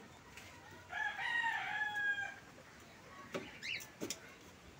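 A rooster crowing once, a single call about a second and a half long, falling slightly in pitch. It is followed by a few sharp clicks.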